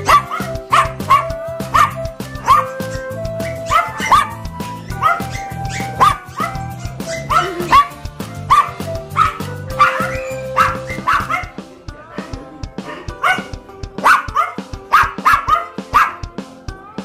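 Small toy poodles yapping over and over, short high barks about twice a second, over background music whose bass drops out about two-thirds of the way through.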